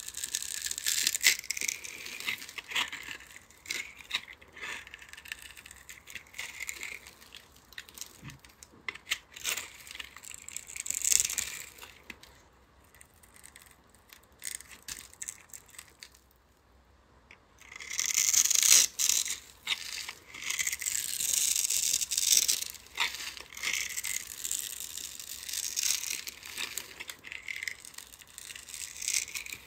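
A knife slicing pre-scored cubes off a bar of dry soap held in the hand: crisp, crackly crunching as the little cubes break free. It comes in runs of a few seconds, with a quiet spell around the middle and the loudest cutting just after it.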